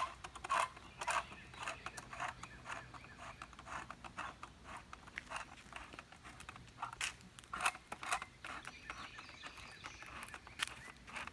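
Irregular light clicks and scrapes of hands working the clip retainer around a Pentair pool light fixture, loosening it from the light.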